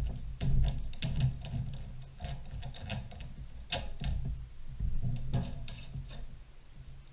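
Pre-mixed two-stroke fuel poured from a can through a funnel into the Stihl MS180 chainsaw's fuel tank. It glugs and patters in uneven bursts, with light clicks and knocks from the can and funnel.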